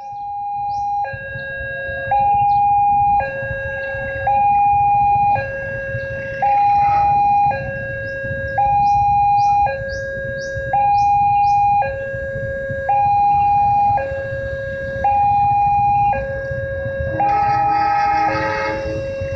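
Railway level-crossing warning alarm sounding: an electronic two-tone signal alternating high and low, each tone held about a second, warning that a train is approaching. A steady low rumble runs underneath, and a brief extra tone cluster joins near the end.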